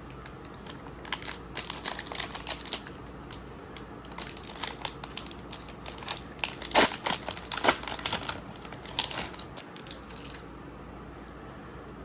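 Foil booster pack wrapper crinkling and crackling in irregular bursts as it is handled and torn open, the crackles thinning out near the end.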